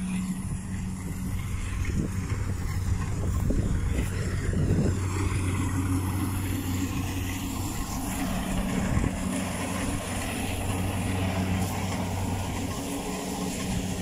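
Crawler rice combine harvester's diesel engine running at steady speed while harvesting, a constant low drone.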